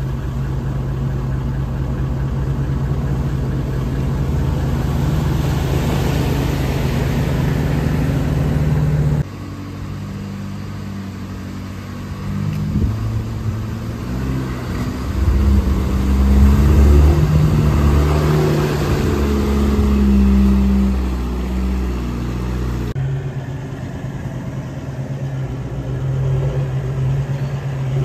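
Four-wheel-drive engines pulling through a shallow creek crossing, with water hissing and sloshing around the wheels. The engine note rises and falls as the vehicles work through the water. The sound changes abruptly twice as the footage cuts from one vehicle to the next.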